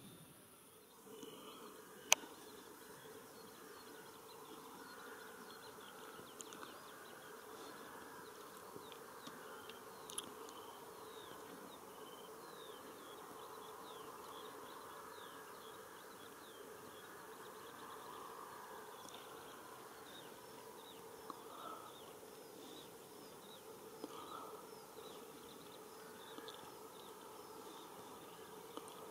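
Faint buzzing of flying insects over a field, steady throughout, with many short high chirps scattered across it and one sharp click about two seconds in.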